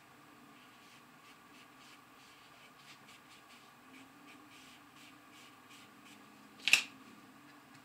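Paintbrush dabbing and stroking acrylic paint onto felt: faint, repeated scratchy brush strokes. One sharp tap or click about two-thirds of the way through stands out above them.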